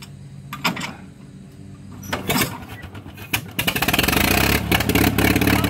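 Massey-Harris 25 tractor engine starting: a few knocks, then about three and a half seconds in it fires and catches at once, settling into a loud, steady run. An easy start, the easiest it has ever started.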